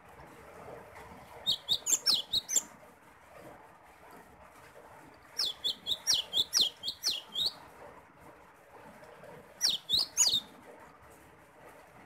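Cinereous tit (gelatik batu) singing three short bursts of quick, high, repeated chirp notes, a few seconds apart, over a faint steady hiss.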